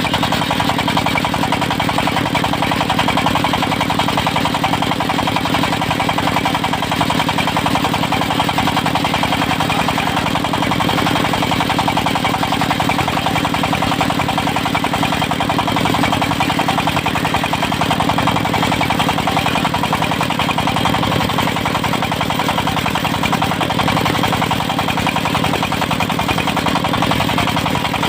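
Engine of a portable circular sawmill running steadily with a fast, even pulsing, unchanging throughout.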